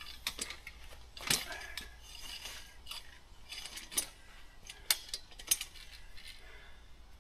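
Metal frame of a pop-up canopy clicking and clanking as a stiff telescoping leg is worked out: a string of sharp metallic clicks and clinks, the loudest about a second in with a short ring.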